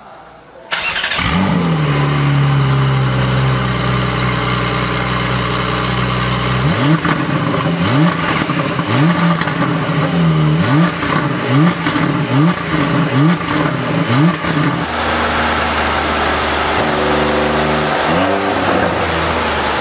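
Porsche 992 Carrera 4S twin-turbo flat-six through an Akrapovič titanium slip-on exhaust, started about a second in with a flare that settles into a steady idle. From about seven seconds on it is blipped in a run of short revs, roughly one a second, idles briefly, then is revved twice more near the end.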